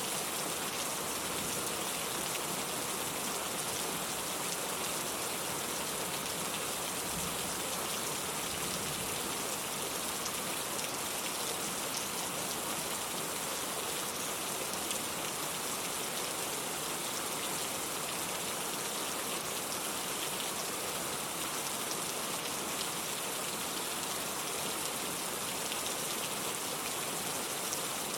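Steady rain falling, an even hiss of many drops with fine patters scattered through it.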